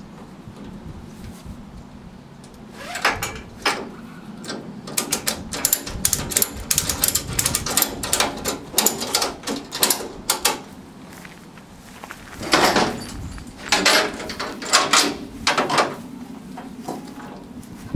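Ratchet tie-down strap being worked to strap a trike's wheel down: rapid ratchet clicks in repeated bursts, with the loudest bursts near the end.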